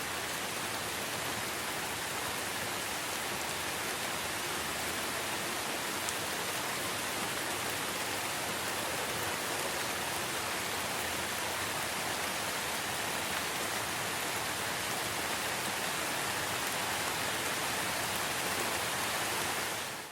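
Light rain falling steadily, an even hiss of drops with no breaks, cutting off suddenly at the end.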